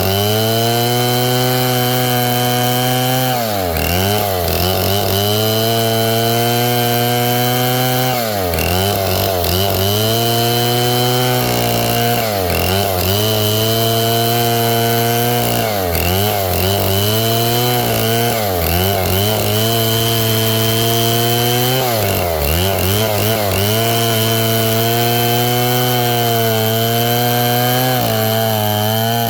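Stihl 070 two-stroke chainsaw running hard through wood. Its engine pitch sags and climbs back every few seconds as the chain bites into the cut and eases off.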